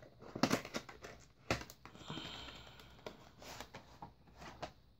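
Cardboard retail box of a PC case fan being handled and opened: several light cardboard knocks and taps, with a brief scraping slide about two seconds in as the inner packaging is pulled out.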